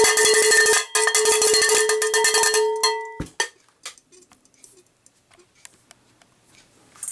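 Cowbell struck rapidly and repeatedly, ringing with a steady metallic tone, then cutting off suddenly about three seconds in; a few faint clicks follow.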